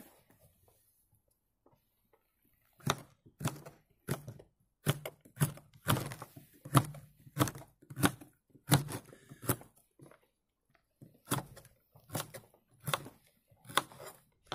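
Kitchen knife chopping carrots into strips on a wooden cutting board: sharp single knocks about one and a half a second, starting about three seconds in, with a brief pause about ten seconds in.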